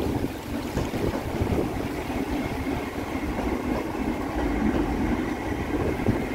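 Electric RRX regional train running past on the bridge tracks: a steady rumble with a faint high whine above it. Wind buffets the microphone.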